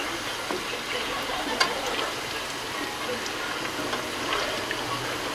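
Tofu cubes deep-frying in hot oil in a wok: a steady sizzle with scattered pops and crackles.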